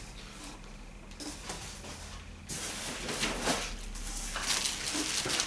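Rustling and handling noise as plastic-wrapped parts are dug out of a cardboard box, faint at first and louder from about halfway through.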